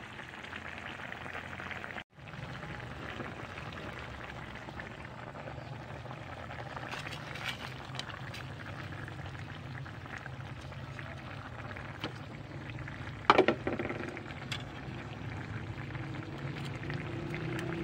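Vegetable broth bubbling in a pan of stewing tilapia on a gas stove, with a single loud sharp knock against the pan about 13 seconds in and a few lighter clicks.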